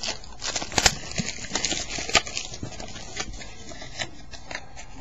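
Handling noise from a trading-card pack and its packaging being picked up and moved: scattered sharp clicks and knocks, the loudest just under a second in and another about two seconds in, over light rustling.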